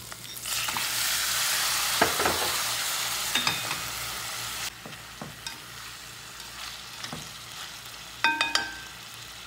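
Raw chicken pieces hitting hot oil with sautéed garlic, ginger and onion set off a loud sizzle, while a slotted spatula stirs them and knocks against the pot several times. About halfway through the sizzle drops suddenly and settles into a quieter steady frying hiss.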